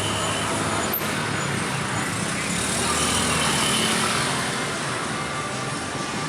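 Steady street traffic noise, with a single sharp click about a second in.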